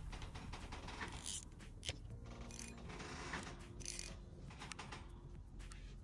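Spinning fishing reel being handled, its mechanism giving scattered clicks and short whirring rasps, over quiet background music.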